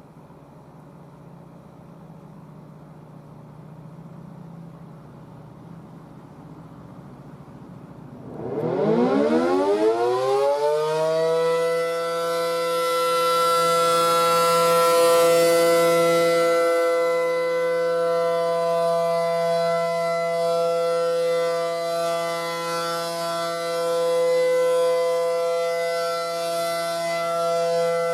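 ACA Allertor 125 electromechanical tornado siren winding up about eight seconds in, its pitch rising fast, then holding the steady alert tone. The tone is loud and slowly swells and fades. A faint low hum comes before the wind-up.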